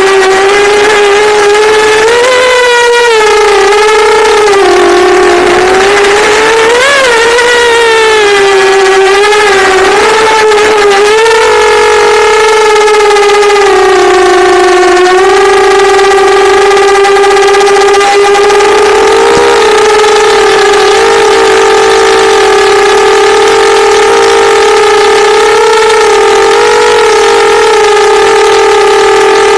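Brushless motors of a multirotor drone whining at one pitch with several overtones. The pitch wavers up and down for the first dozen seconds, then holds nearly steady. The owner calls it a bad motor sound and is unsure whether it comes from the frame, the PID tuning or the motors themselves.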